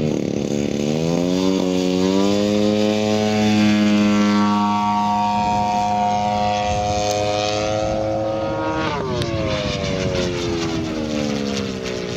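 Giant-scale radio-controlled warbird model plane's engine and propeller running up to full throttle, the pitch rising over the first two seconds and then holding steady. About nine seconds in the pitch drops sharply and keeps falling away.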